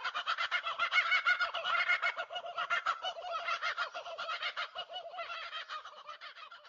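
Birds calling in a fast chattering series of notes, about ten a second. The calls fade out near the end.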